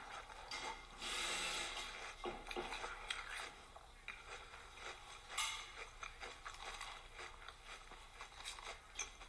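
Cereal being chewed close to the microphone: irregular crunching with a few light clicks.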